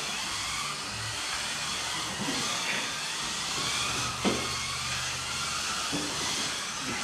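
Several Kyosho Mini-Z RC cars racing, their small electric motors whining and gliding up and down in pitch as they speed up and slow down, with one sharp knock about four seconds in.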